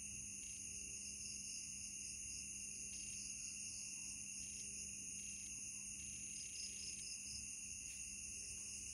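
Night insect chorus, mainly crickets, trilling steadily in several overlapping high-pitched bands, over a faint low steady hum.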